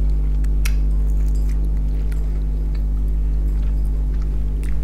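A steady low electrical hum, over which come a few faint clicks and wet mouth sounds of fingers picking small bones out of fried fish and chewing.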